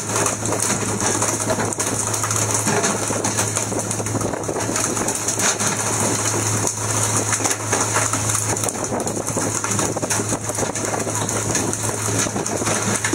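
Fishing boat's engine running with a steady low hum under a constant rush of wind and water.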